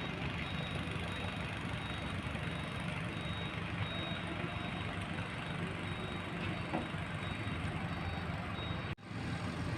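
Excavator diesel engine running steadily with a low rumble and a faint, thin high whine above it. The sound drops out briefly near the end.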